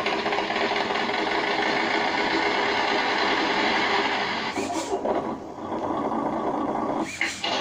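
Simulated engine sound from an RC car sound-and-light module, played through a speaker and running steadily. It breaks off briefly twice, about four and a half and seven seconds in.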